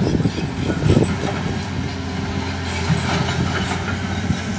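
Caterpillar excavator's diesel engine running steadily, a low even hum.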